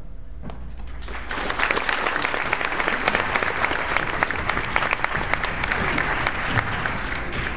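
A large crowd of schoolchildren applauding, the clapping starting about a second in and then holding steady.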